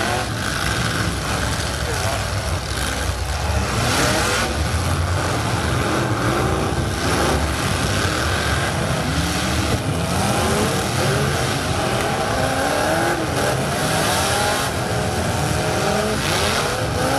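Several demolition-derby pickup trucks' engines revving hard, their pitches rising and falling over one another, with a handful of crunching impacts as the trucks ram each other.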